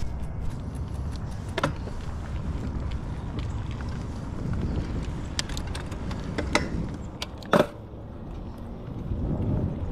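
Mountain bike rolling along a dirt trail: a steady low rumble of tyres and wind on the microphone, with a few sharp clicks and rattles from the bike, the loudest about three-quarters of the way through.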